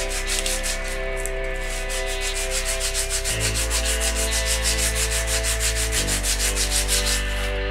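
Disc-brake pad rubbed back and forth on 120-grit sandpaper, sanding its friction face clean: quick, even scraping strokes, about five a second, that stop shortly before the end.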